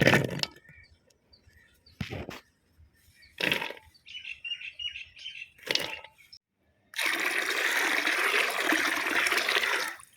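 A few short sharp knocks, a brief twitter of small birds, then a steady rush of running or pouring water lasting about three seconds near the end.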